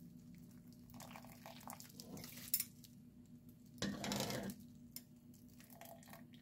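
Metal mesh strainer scooping blanched dried chili pepper leaves out of a pot of hot water: quiet sloshing and dripping, with one louder splash about four seconds in, over a steady low hum.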